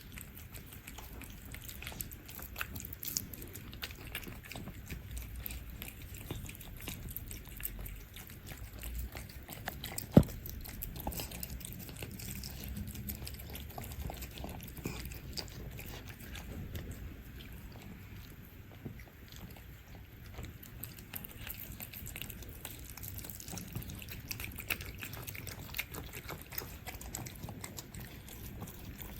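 Cats eating from bowls: steady close-up chewing and biting with many small wet clicks and smacks. One sharp click about ten seconds in.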